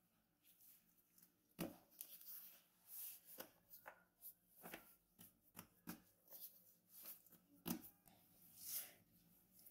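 Gloved hands folding and pressing a stack of dough sheets on a wooden board, then a rolling pin over the dough: faint, irregular soft knocks and rustles.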